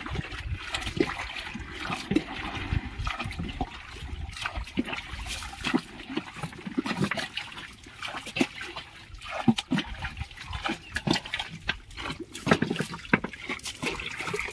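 Water splashing and sloshing around a small wooden fishing boat, with many irregular drips, clicks and knocks.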